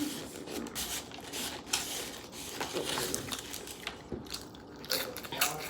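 People crunching hot Takis and popcorn, a string of short, irregular crackles and crinkles.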